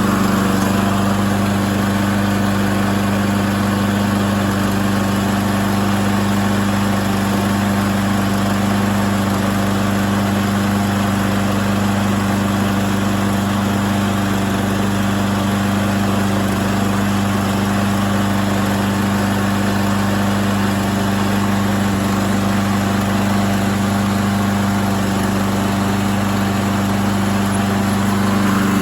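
Toro Recycler walk-behind lawn mower engine running at a steady speed, a constant hum with a steady hiss underneath.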